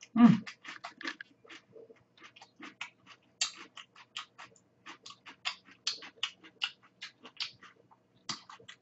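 Close-miked eating sounds: a steady stream of small wet mouth clicks and smacks, a few a second, as soft food is chewed. A brief hum of voice sounds at the start.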